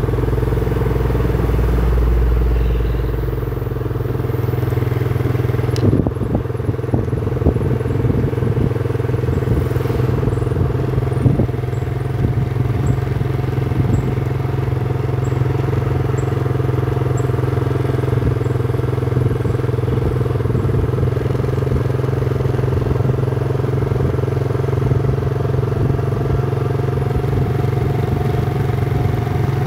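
Engine of a moving vehicle running steadily at an even road speed, with road noise. A few light knocks come through between about six and eleven seconds in.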